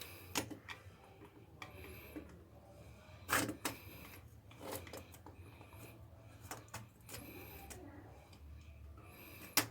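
Irregular small clicks and knocks of plastic and metal as a worn electrical wall outlet is handled and taken out of its plate. The loudest knock comes about three and a half seconds in, another near the end, over a faint steady low hum.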